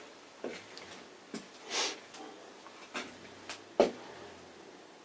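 Small workshop handling sounds: about five light clicks and knocks of parts being picked up and set down, with a short scrape or rustle about two seconds in and the sharpest knock near the end.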